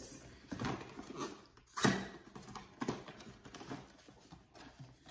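Cardboard camera box and packaging being handled and opened on a table: rustling with irregular knocks, the loudest a sharp knock about two seconds in.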